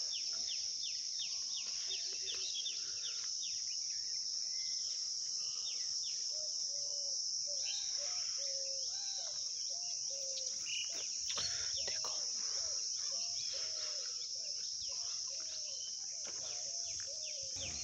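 Steady high-pitched drone of insects, with birds chirping and calling over it throughout; a run of short repeated calls comes through in the middle.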